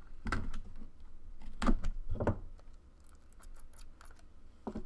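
Utility knife slitting the seal on a sealed trading-card box, then the box being handled and opened. A few knocks and scrapes, the loudest about a third of the way in, with faint scratchy ticks near the end.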